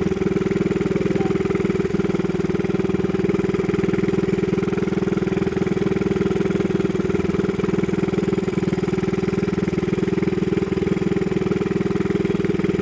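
Small engine running steadily at an even speed, with no change in pitch or level.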